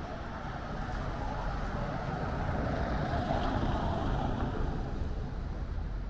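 An SUV driving slowly past over cobblestones, its tyre and engine noise rising to a peak about three to four seconds in and then easing off.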